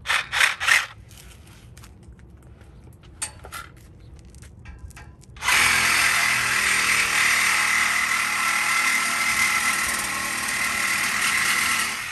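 Cordless reciprocating saw cutting into a car's steel exhaust pipe beside the catalytic converter: three short bursts at the start, then about five seconds later it runs loud and steady until it stops near the end.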